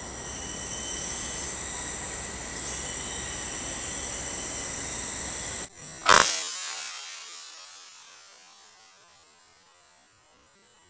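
Steady insect chorus with several high ringing tones, then about six seconds in a single sharp rifle shot fired at an animal in a tree; after the shot the background fades to a quiet hiss.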